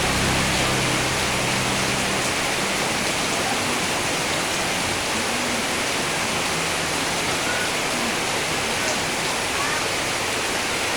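Heavy rain falling steadily, a dense even hiss, with a faint low hum under it for the first couple of seconds.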